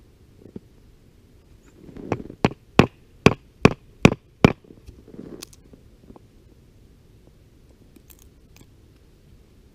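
A wooden baton striking about seven times in quick succession: sharp wooden knocks roughly half a second apart, typical of batoning a knife to cut a notch in a stick.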